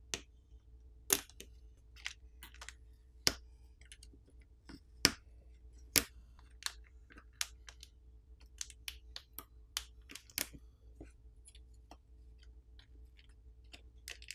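Irregular sharp clicks and taps of fingers and a plastic pry pick working on an opened Nothing Phone 1's internals, as protective film and a flex cable are lifted. There are a dozen or so small clicks, the loudest about 1, 3, 5 and 6 seconds in.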